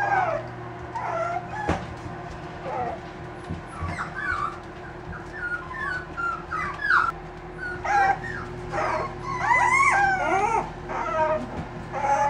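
Five-week-old miniature dachshund puppies whining and yipping as they play, many short high cries rising and falling, thickest toward the end, over a steady low hum.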